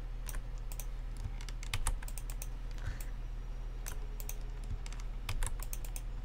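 Irregular clicks and taps of a computer keyboard and mouse, some coming in quick runs, over a steady low electrical hum.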